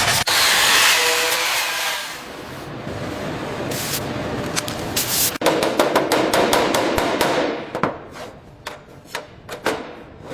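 A hiss for about two seconds, then a run of sharp hammer taps and knocks that grows sparser toward the end, as parts are fitted during assembly.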